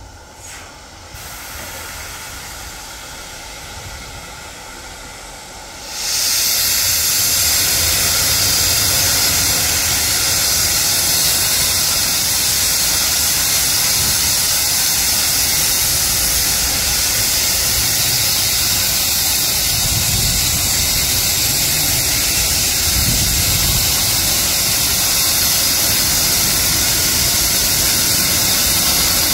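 Steam hissing from LMS Stanier 2-6-0 No. 13268, a steam locomotive: a softer hiss at first, then about six seconds in it turns suddenly into a loud, steady hiss that carries on.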